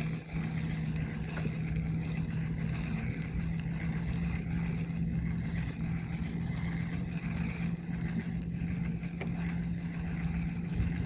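A boat's motor running steadily, giving a constant low hum.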